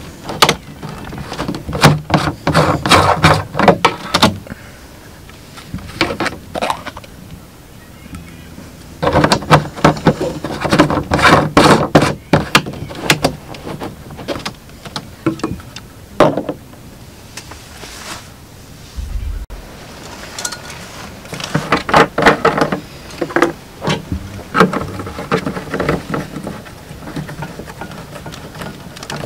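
Plastic screw cap being unscrewed from a Ridge Monkey 10-litre plastic water carrier and a spout tap fitted onto it, heard as three bouts of clicks and rattles with quieter pauses between.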